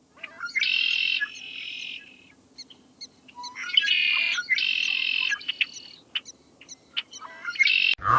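A bird calling repeatedly: about five harsh, buzzy calls of around half a second to a second each, with short ticks and chirps in between.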